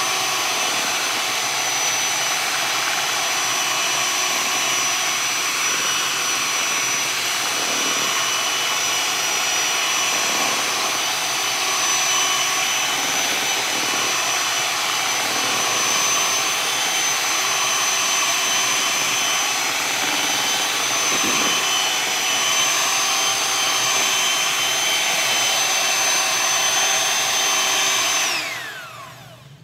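White electric hand mixer running steadily with a high whine, its beaters churning chocolate cake batter in a bowl. Near the end it is switched off and the whine falls in pitch as the motor spins down.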